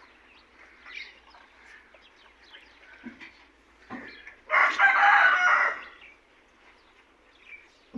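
A rooster crows once, about halfway through, in a single call lasting just over a second. Faint chirping of small birds runs underneath.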